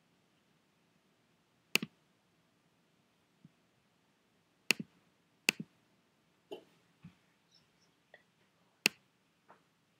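Scattered sharp computer mouse clicks: four loud single clicks a second or more apart, with a few fainter clicks and taps between.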